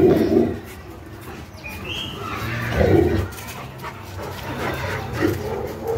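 Dogs barking while they play: a loud bark right at the start, another about three seconds in, and a softer one about five seconds in.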